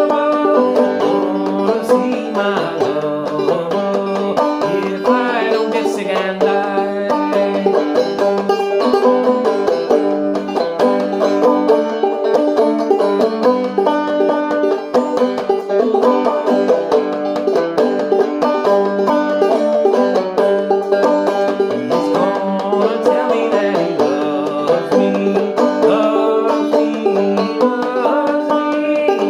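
Five-string banjo played clawhammer style in open G tuning, a steady run of picked melody notes over a repeating drone string.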